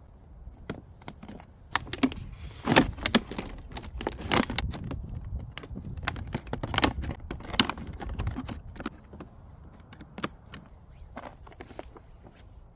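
Irregular clicks, clinks and rustles of small objects being handled, busiest between about two and eight seconds in, then thinning out.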